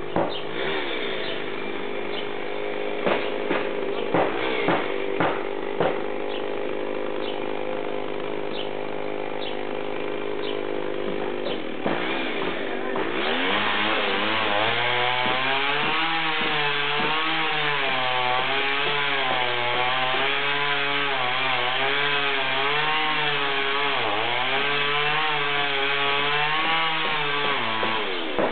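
A chainsaw runs at a steady speed with scattered sharp knocks. About halfway it speeds up and gets louder, its pitch rising and falling over and over as it cuts.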